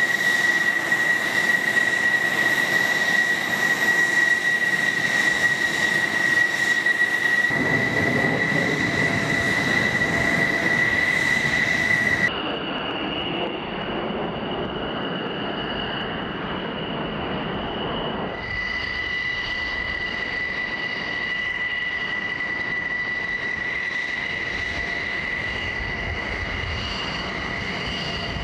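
F-16 fighter jets' turbofan engines running at taxi power: a steady high-pitched whine over a broad rush. The sound changes abruptly about twelve seconds in, and the whine comes back a few seconds later.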